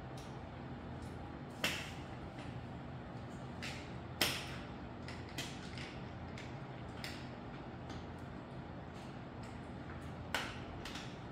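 Sharp clicks and knocks of parts and tools being handled during work on a folding electric bike: three louder ones, about two seconds in, about four seconds in and near the end, and a few fainter taps between, over a steady low hum.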